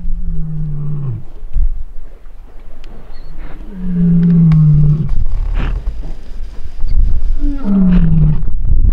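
Male lion roaring: three long, deep calls a few seconds apart, each falling in pitch, over a steady low rumble.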